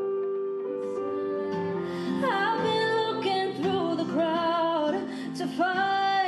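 Piano playing held chords, then a woman's solo voice comes in about two seconds in, singing sustained notes over the piano.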